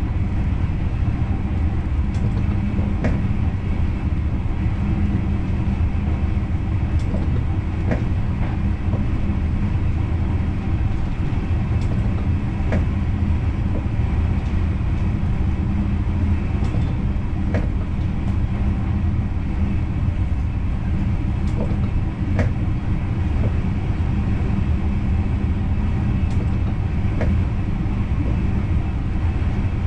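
Intercity passenger train running along the track, heard from inside the driver's cab: a steady low rumble with scattered sharp clicks.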